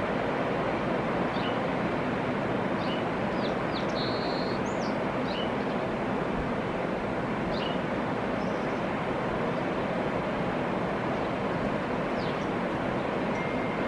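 Steady rush of river rapids. Short high bird chirps come every couple of seconds over it, with a brief buzzy call about four seconds in.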